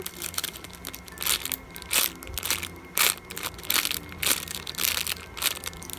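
Clear plastic packaging bag crinkling in irregular sharp crackles, about one or two a second, as a foam squishy toy is squeezed inside it.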